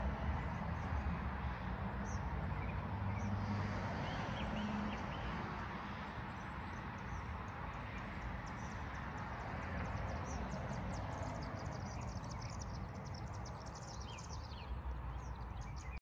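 A 3-ton Bard wall-mount heat pump in cool mode giving a steady hum and air noise, slightly quieter after about six seconds. Birds chirp throughout.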